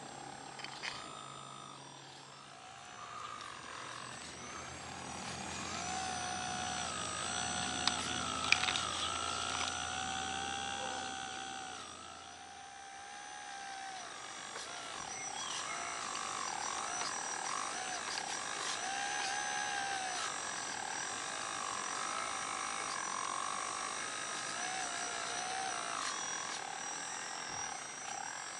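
Hydraulic pump of a radio-controlled Menzi 5000 walking excavator model whining, its pitch repeatedly dipping and rising as the boom and bucket work, with a sharp knock about eight seconds in.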